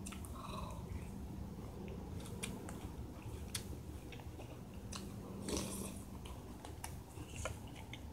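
A person chewing and crunching cereal close to the microphone, with scattered small crunches and clicks.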